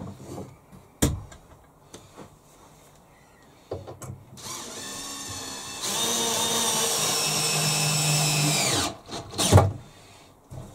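Cordless drill-driver driving a screw through the front rail into a softwood workbench leg. The motor starts about four seconds in and runs for about five seconds, getting louder partway through, and its pitch drops just before it stops. A few sharp knocks come before and after.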